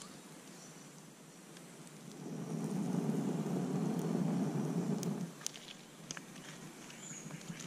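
A man blowing hard and steadily on smouldering campfire embers and a bundle of dry grass tinder for about three seconds to coax them back into flame, starting about two seconds in. A few light clicks follow near the end.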